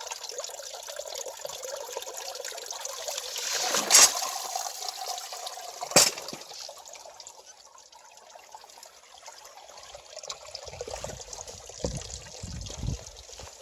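Water trickling and splashing at a small water wheel in a mountain stream, with a louder splash about four seconds in and a sharp knock about two seconds later. Dull low thumps come near the end.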